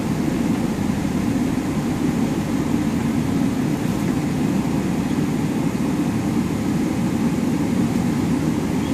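Steady low rumble of cabin noise inside a Boeing 777-300ER airliner lining up on the runway, its jet engines and air conditioning running at an even level.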